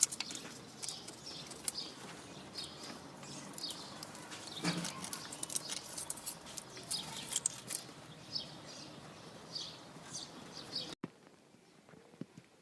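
A busy string of short, high chirps and light ticks over faint background noise, with a duller knock about five seconds in. Near the end the sound cuts off abruptly to a much quieter background.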